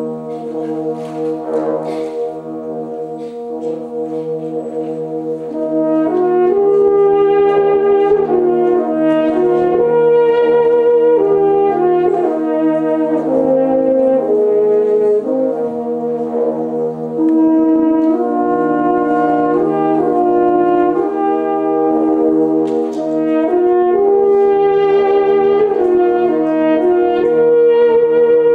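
French horn ensemble playing a slow piece in harmony: held chords underneath, with a louder melody line coming in about six seconds in.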